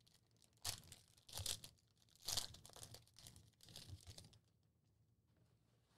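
Foil wrapper of a basketball card pack being torn open and crinkled: a few short rips and crinkles, stopping about four seconds in.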